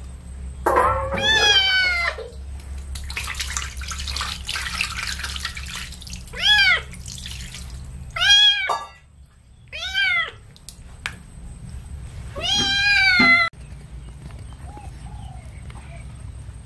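A wet kitten meowing five times while it is bathed. Short meows rise and fall in pitch, with longer ones near the start and near the end. A few seconds of splashing water come between the first two.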